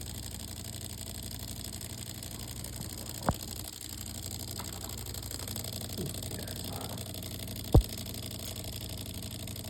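DeLonghi Magnifica S espresso machine's water pump running steadily through the hot water cycle, a test of the newly fitted valve. Two sharp clicks cut through the hum, about three seconds in and again near eight seconds, the second louder.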